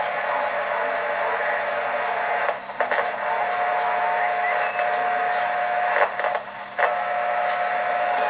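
CB radio receiver hissing with band static and noise between calls on a long-distance skip band, with no clear voice coming through. A steady tone rises out of the static about three seconds in, and the noise dips briefly twice.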